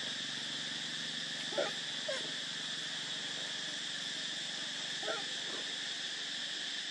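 A few short, squeaky whimpers from a macaque, three brief calls about a second and a half, two seconds and five seconds in, over a steady high background hiss.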